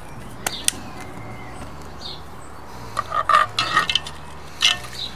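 Light taps and clinks of a measuring spoon against a cast iron pot as dry rub is added to the braising liquid: two sharp clicks about half a second in, a quick cluster of taps around three to four seconds, and a couple more near the end.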